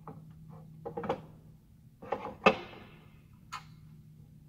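Metal curtain-wall unit frame clunking and knocking as it is set down and seated onto the mullion's chicken head: a few knocks, the loudest about two and a half seconds in, then a lighter click about a second later.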